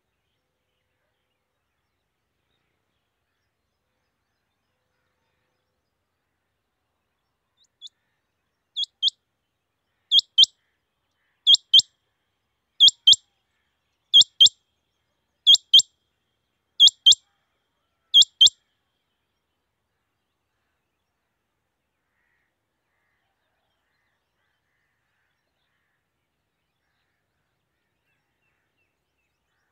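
Male rain quail calling: a run of about eight sharp, high double notes, one pair roughly every second and a quarter, starting faint about eight seconds in, quickly growing loud, and stopping after about ten seconds.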